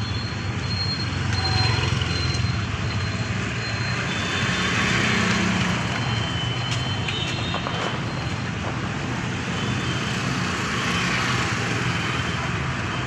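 Urban road traffic: motor scooters and motorcycles passing close by over a steady hum of engines and tyres, swelling louder as vehicles go past.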